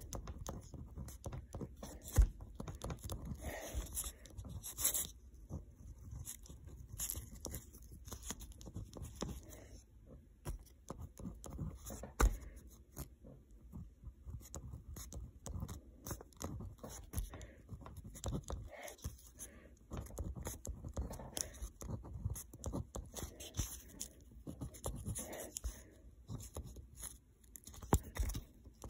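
Pen scratching across paper as words are written by hand, in short, irregular strokes with small taps as the pen lifts and lands.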